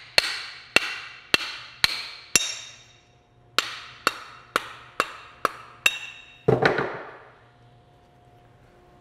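Hammer blows knocking a steel axe head off its wooden handle, each strike ringing briefly, about two a second. There is a short pause about three seconds in, then another run of six blows and a quick jumble of knocks near seven seconds as the head comes loose.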